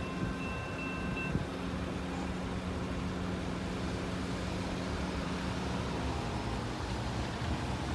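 Grade-crossing warning bell ringing, cutting off about a second in as the gates lift. Then road vehicles' engines run as cars pull across the tracks, over steady traffic and wind noise.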